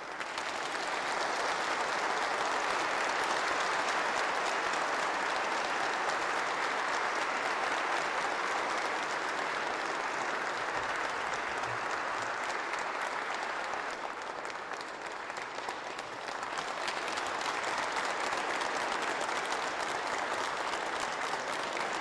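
Audience applauding steadily. The clapping eases briefly about two-thirds of the way through, then picks up again.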